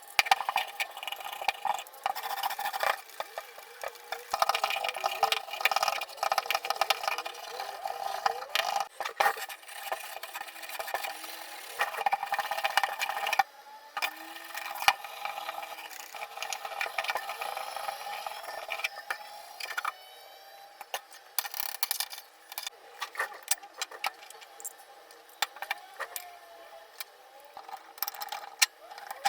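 Irregular clicking, knocking and rattling of small hard parts being handled and worked on, with a steady hum under some stretches.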